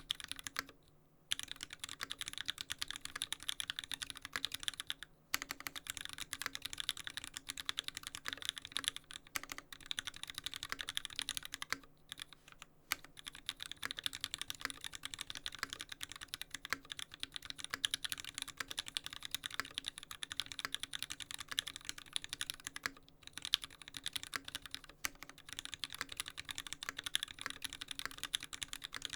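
Fast continuous typing on a custom mechanical keyboard with lubed Gateron Yellow linear switches, a dense stream of keystroke clacks broken by a few brief pauses.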